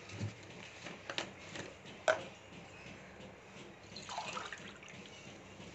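Faint water sounds: a few light clicks and drips of water and steel kitchenware, then water running with a rising pitch about four seconds in, like a glass being filled.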